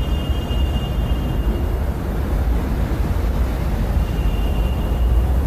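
Steady low city rumble of distant traffic, a dense even drone, with faint high thin tones near the start and again about four seconds in.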